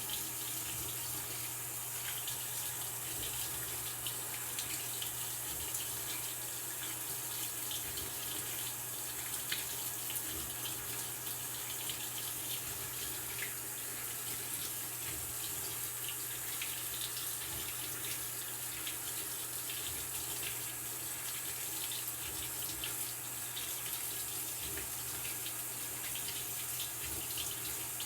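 Maytag Bravos XL top-load washer filling with water: a steady rush of water pouring into the tub, with a steady low hum underneath.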